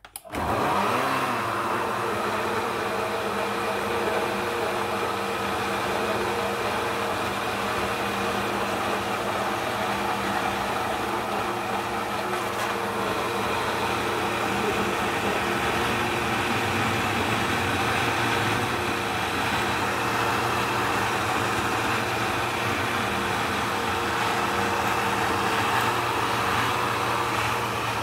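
Bosch SilentMixx Pro countertop blender motor switched on and blending chopped fruit into juice: it starts suddenly, spins up with a brief rising whine in the first second, then runs at a steady, loud, even hum.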